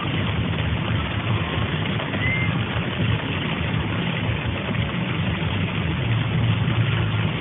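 Steady car engine and road noise heard inside a moving car's cabin, with a continuous hiss over a low hum.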